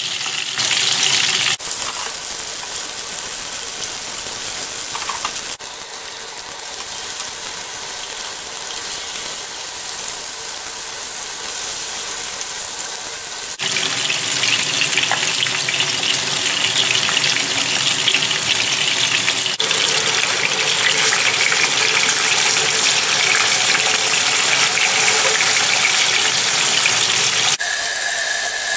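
Oil sizzling in frying pans as chopped onion and chicken thighs fry, a steady hiss that changes level abruptly several times.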